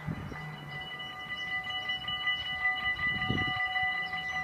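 Dutch automatic level-crossing warning bells ringing steadily at several fixed pitches, starting about half a second in: the crossing has been activated for an approaching train. A brief low thump comes about three seconds in.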